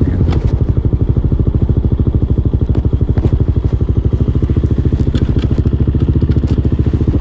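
Hawk 250cc motorcycle's single-cylinder engine running with a steady, rapid, even pulsing beat, heard through a microphone clipped inside the rider's helmet.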